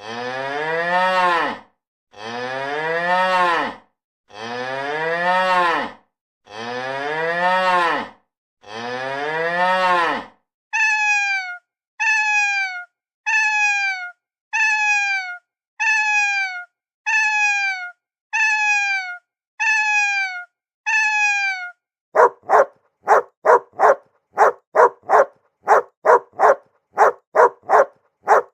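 A cow mooing five times in long, low calls, then a cat meowing ten times in short, falling meows, then a dog barking rapidly, about two barks a second. Each animal's calls repeat identically, like a looped recording.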